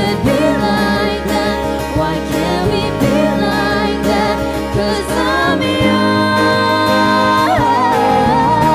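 A young woman singing a pop ballad live into a handheld microphone, with a band playing behind her. Her voice wavers with vibrato, then from about halfway she holds one long note, lifting in pitch shortly before the end.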